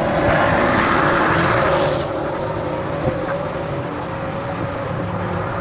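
Race car engine sound effect: a steady engine tone with rushing noise, loudest for the first two seconds, then easing, and cutting off suddenly near the end.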